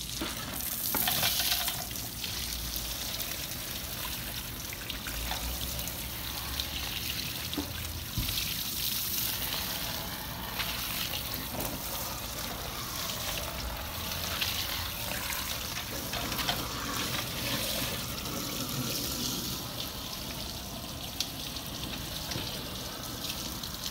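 Water spraying from a fireman-style hose nozzle onto a car wheel and tyre, a steady spray with splashing as it rinses off the wheel cleaner and brake dust.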